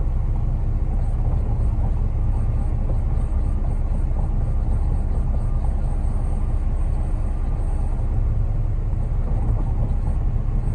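Concrete mixer truck's diesel engine running steadily with a low rumble while the truck discharges its load.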